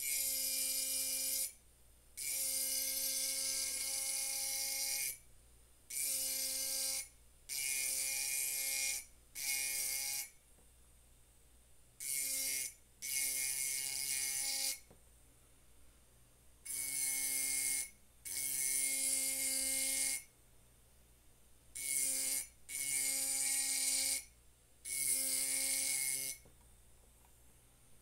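Electric engraving pen's fine bit grinding into a glass wine bottle: a steady whine with a gritty hiss, starting and stopping in about a dozen bursts of one to three seconds each.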